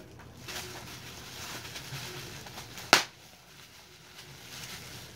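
Plastic bubble wrap crinkling and rustling as a figure is unwrapped by hand, with one sharp, loud snap about three seconds in.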